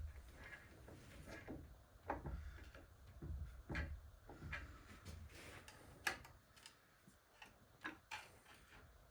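Hand tools and transmission parts being handled: scattered light clicks and knocks at irregular intervals.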